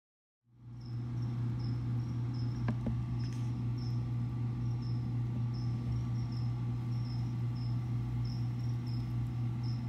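A cricket chirping steadily, about two short high chirps a second, over a loud, steady low hum. The sound starts about half a second in.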